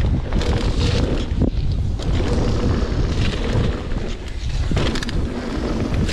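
Wind buffeting the microphone of a mountain bike rider at speed on a dirt trail, with the tyres rolling on dirt and frequent knocks and rattles from the Propain Tyee mountain bike over bumps.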